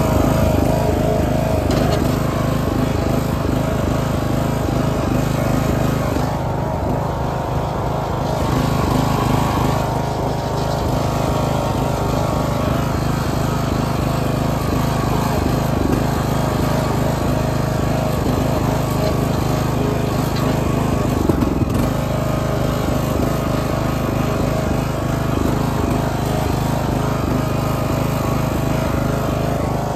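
Craftsman riding lawn mower engine running steadily while the mower is driven, heard up close from the driver's seat.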